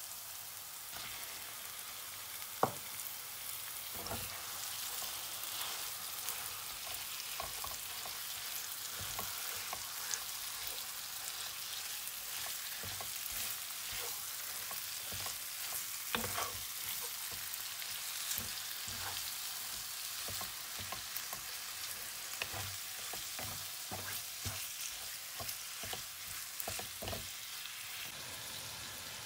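Chicken mince and sliced onions frying in a non-stick pan: a steady high sizzle, with a wooden spatula knocking and scraping against the pan as it is stirred, and one sharp knock about two and a half seconds in.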